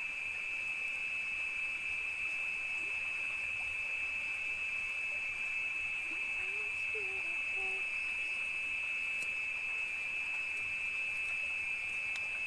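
Steady high-pitched chorus of night insects in tropical forest, unbroken throughout. A few faint, brief low calls from an animal come through in the middle.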